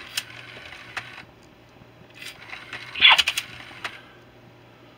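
Squawkers McCaw animatronic toy parrot's mechanism clicking as it moves, with scattered sharp clicks and a louder short clatter about three seconds in.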